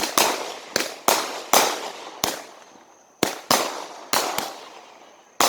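Fireworks going off: about ten sharp bangs at uneven intervals, each trailing away quickly, with a pause of about a second midway.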